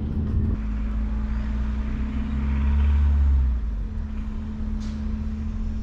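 An engine running steadily with a constant low hum, and a deeper rumble that swells for about a second and a half around the middle.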